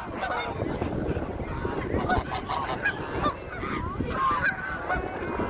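Geese honking, many short calls overlapping, as from a flock, over a steady low background noise.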